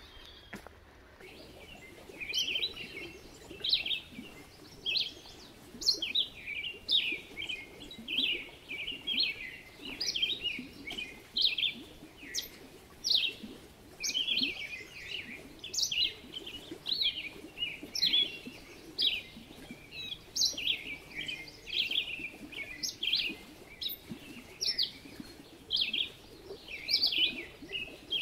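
Birds chirping: short, high calls in quick succession, several a second, starting about a second in.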